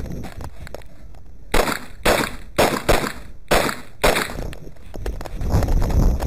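Six pistol shots fired about half a second apart, followed near the end by a low rumbling rustle of movement.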